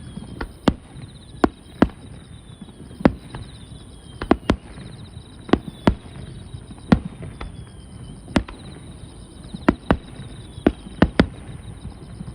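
Fireworks going off: a string of sharp bangs at irregular intervals, some in quick pairs, over a steady faint background.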